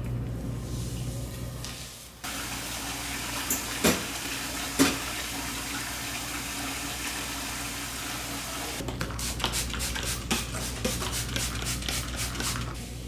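Water running into a kitchen sink, a steady hiss broken by two sharp clinks. Near the end comes a quick run of knocks, about four a second.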